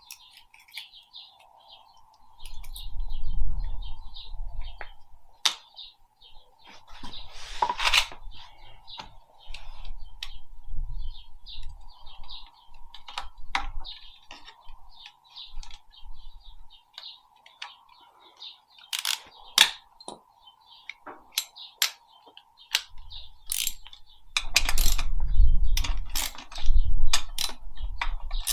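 Small birds chirping in the background, with scattered sharp clicks and clinks and a few stretches of low rumbling.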